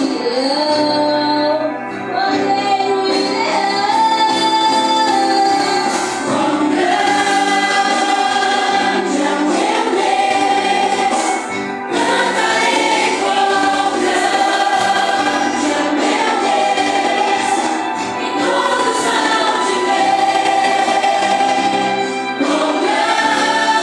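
A youth choir singing a Christian worship song together, the voices holding long notes.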